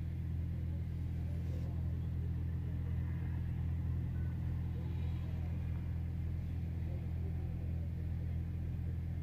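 Steady low drone of an idling vehicle engine, even and unchanging throughout.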